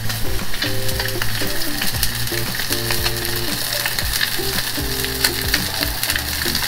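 Slab of pork belly searing fat side down in a hot, dry frying pan, sizzling steadily with many small crackles as the fat renders.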